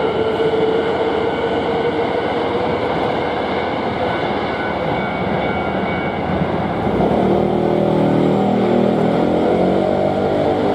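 Hankyu Kyoto Line electric train passing over a level crossing, its wheels and running gear making a loud steady rumble while the crossing's warning bell rings. About seven seconds in, a steady hum with several pitches joins.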